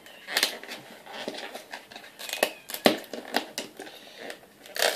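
Trading cards and their plastic being handled: a string of short clicks, rustles and crinkles, the loudest near the end.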